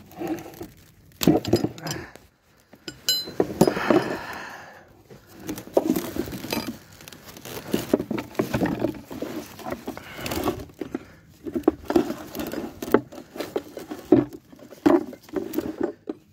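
Irregular metallic clinks, knocks and scrapes of hand tools working on a trailer's brake parts, with one short ringing clink about three seconds in.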